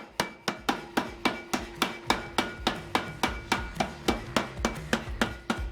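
Rapid, evenly spaced hammer blows forging a steel billet on an anvil, about three to four strikes a second, with a faint metallic ring between blows.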